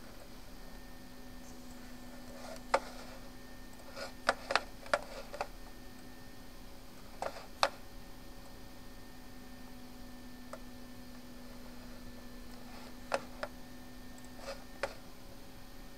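Scattered sharp computer mouse clicks, about a dozen in all, some in quick pairs, over a steady low hum and faint room noise.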